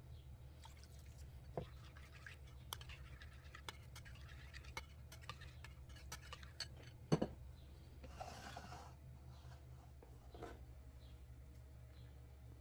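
Spoon stirring a runny yogurt marinade in a ceramic bowl: light clinks and scrapes against the bowl, with one louder knock about seven seconds in, over a steady low hum.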